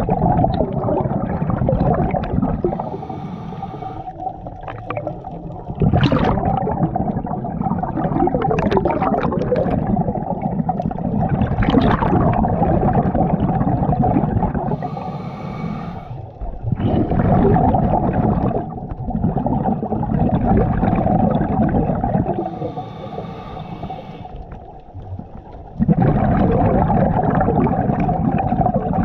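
Scuba diver breathing through a regulator, heard underwater close to the head: long loud spells of bubbling exhalation alternate with three quieter spells of inhalation hiss, a few seconds each.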